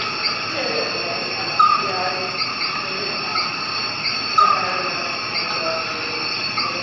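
A steady high-pitched whine, with short faint chirps repeating about once a second and two louder squeaks, about one and a half and four and a half seconds in.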